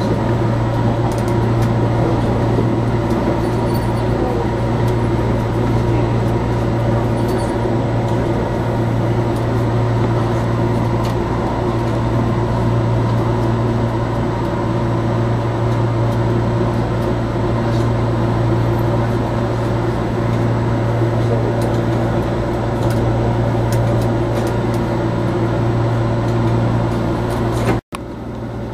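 Cab interior of a JR Kyushu 415 series electric train: a steady low electrical hum with rail running noise as the train rolls slowly along a station platform. The sound cuts out abruptly for an instant near the end, then comes back quieter.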